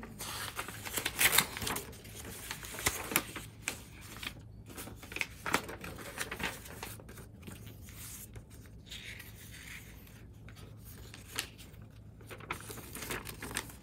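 Sheets of origami paper rustling and crackling as they are picked up, flexed and shuffled by hand, in irregular bursts that grow fainter in the second half.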